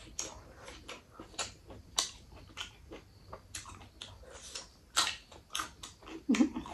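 Close-up chewing of a mouthful of rice and mutton curry: irregular wet smacks and sharp mouth clicks, with a brief voiced sound near the end.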